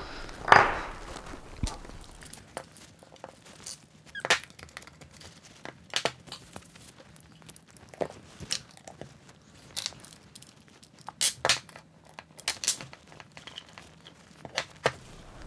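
Scattered clicks, taps and scrapes of small metal hardware and a hand tool being handled against a machined aluminium weapon block. The loudest knock comes about half a second in, with a cluster of clicks near the end.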